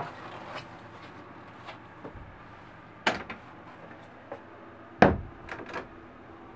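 A few sharp knocks over a faint steady hiss, the loudest a heavier thump about five seconds in, followed by two lighter knocks: handling and footstep knocks while moving through a sailboat's wooden cabin.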